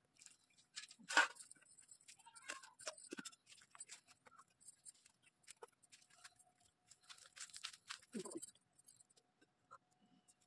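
Stainless steel pots, a plate lid and a spoon clinking and knocking as they are handled, in scattered sharp knocks; the loudest knock comes about a second in.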